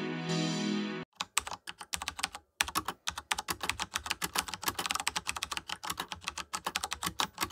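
Music for about the first second, cut off abruptly, then a run of rapid, irregular clicks with short pauses that stops suddenly near the end.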